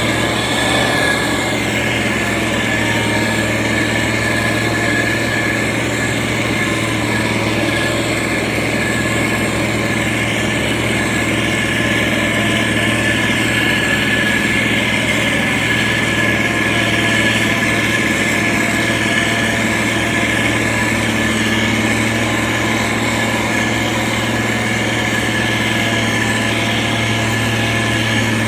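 Diesel engine of a SANY STG190C-8S motor grader running steadily, its pitch and loudness unchanging.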